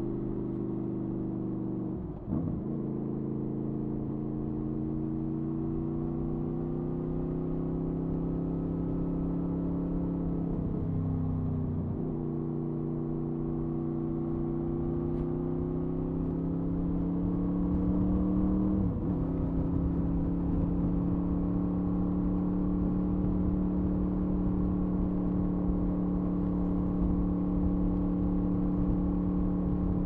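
Honda VFR800A Interceptor's V4 engine and exhaust under way on the road. The note climbs slowly, dips briefly three times (about two seconds in, around eleven seconds and near nineteen seconds), then holds steady, with wind rumble on the microphone underneath.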